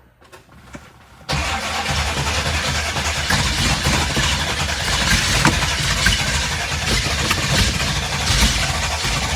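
1975 Chevrolet Corvette's small-block V8 being cranked over by the starter on a first-start attempt after restoration. The sound comes in suddenly about a second in and then runs on steady and loud.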